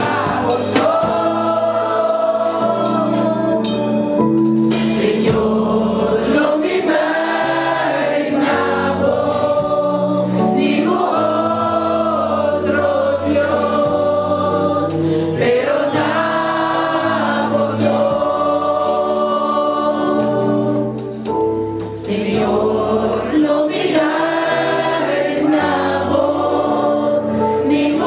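Church congregation singing a gospel worship song together, with musical accompaniment under the voices; it eases off briefly about two-thirds of the way through.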